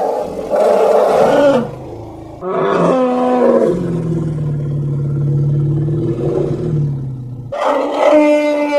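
A series of elephant calls: a loud call that stops about a second and a half in, then a call falling in pitch that settles into a long, lower held tone, and another loud call starting near the end.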